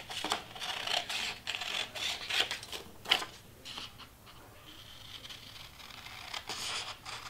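Paper rustling and scissors snipping as a printed sheet of sublimation transfer paper is handled and trimmed, in short irregular scraping strokes that grow quieter about halfway through.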